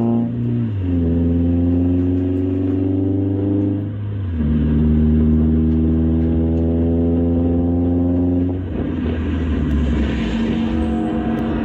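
Car engine pulling hard under full throttle through the gears. Its pitch climbs slowly in each gear, with upshifts about a second in and about four seconds in. About eight and a half seconds in the steady note breaks up into a rougher, noisier sound.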